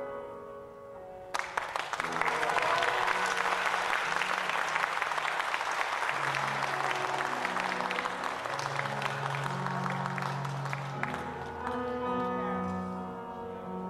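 Audience applause breaking out suddenly about a second in and lasting about ten seconds, marking the end of a sung performance. Held notes of instrumental music carry on under it and alone near the end.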